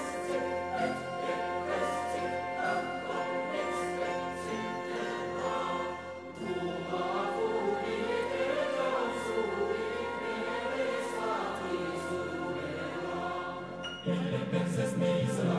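Background music: a choir singing with orchestral accompaniment, which swells louder near the end.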